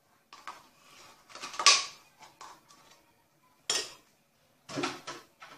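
A metal fork clinking and scraping against a glass mixing bowl as strawberry yogurt is scraped into it, in a string of short, sharp knocks and scrapes, the loudest about a second and a half in.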